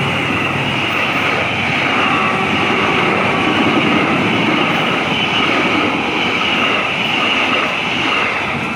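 Argo Parahyangan passenger train's stainless-steel coaches rolling past at speed without stopping: a loud, steady rumble and rail noise that eases slightly near the end.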